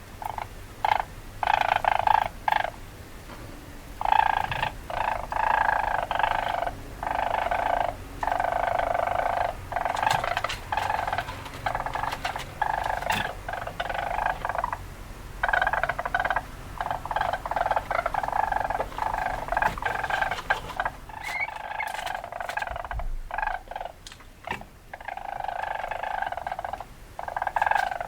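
Weasel calling: repeated runs of rapid, chattering calls lasting from under a second to a few seconds, with short pauses between them.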